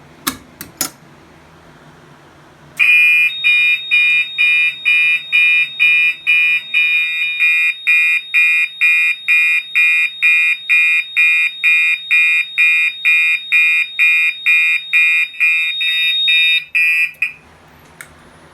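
A couple of sharp clicks as the FCI MS2 pull station is pulled. About three seconds later a Gentex SHG horn-strobe starts sounding in march time: a high, harsh electronic horn pulsing about twice a second. It cuts off a little over a second before the end when the alarm is silenced.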